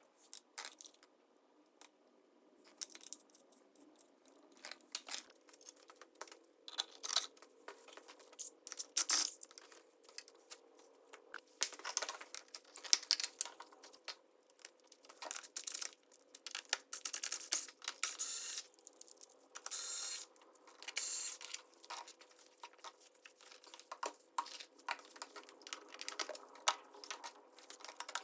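Irregular clicks, taps and crinkling rustles of things being handled, with longer rustling stretches about 12 seconds in and again from about 18 to 21 seconds.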